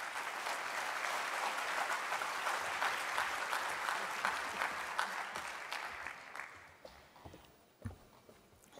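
Audience applauding, a dense patter of hand claps that dies away about seven seconds in. A single low thump follows near the end.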